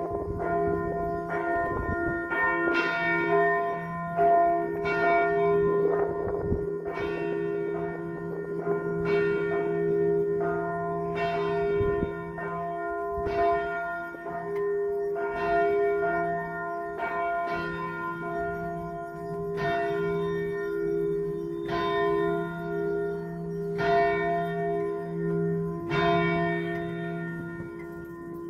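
Church bell tolling, struck again about every second and a half, its deep hum ringing on between strokes.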